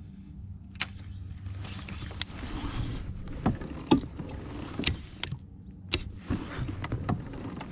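Pedal-drive fishing kayak under way: the pedal drive clicks and creaks roughly once a second with the pedal strokes, over a soft wash of water.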